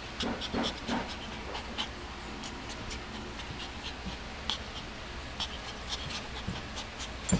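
Mame shiba puppy tussling with a person's hand: scattered small clicks and scuffling, with a few short soft sounds in the first second and a sharper click near the end.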